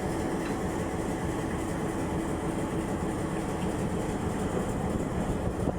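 Diesel locomotive engine running with a steady drone.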